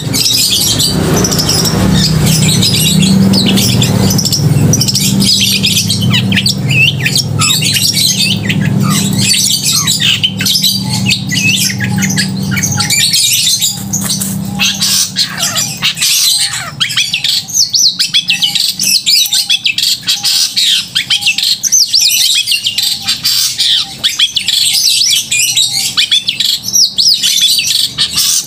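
Long-tailed shrike (cendet) singing loudly and without pause: a rapid, dense stream of sharp, varied high notes and harsh chatter. A low hum underneath fades out about halfway through.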